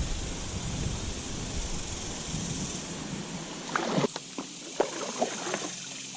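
Moving water rushing and sloshing around a kayak, with wind rumble on the microphone, then a quick run of light knocks and splashes about four seconds in.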